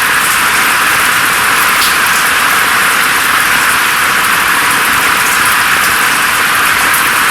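Steady rain, a dense even hiss scattered with faint drop ticks. Its low sounds are cut away below a sharp edge, leaving it thin and bright.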